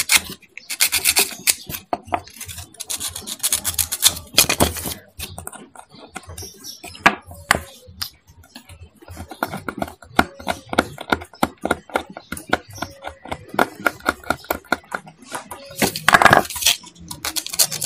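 Quick scraping and rubbing strokes on small metal parts, in bursts of rapid strokes with light clicks in between: rust and dirt being scraped off the contacts of a motorcycle horn relay.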